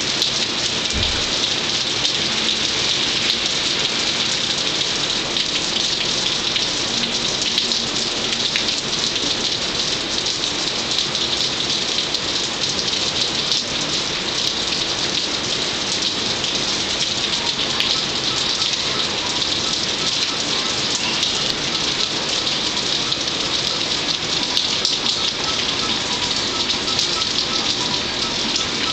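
Steady rain falling in a rainstorm, an even hiss.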